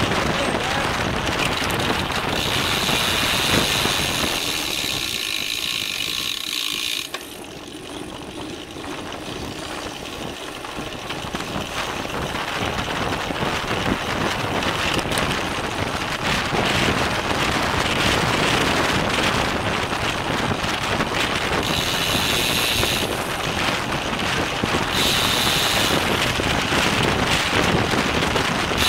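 Wind and road noise on a bike-mounted camera at racing speed, with a road bike's rear freewheel ticking in stretches as the rider coasts.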